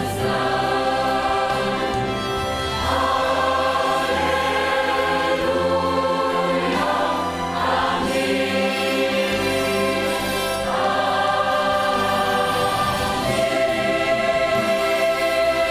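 Children's choir singing a Romanian Christian hymn over instrumental accompaniment, on long held chords that change every few seconds.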